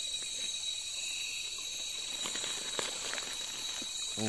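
Steady, high-pitched chorus of night insects trilling, with a few faint clicks of stones being set on stacked stones a little past halfway.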